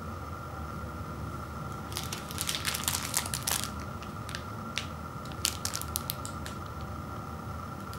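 Crinkling plastic film wrapper of a candy-bar multipack as it is picked up and handled: a dense burst of crackles for about a second and a half, then a few scattered crinkles, over a steady low background hum.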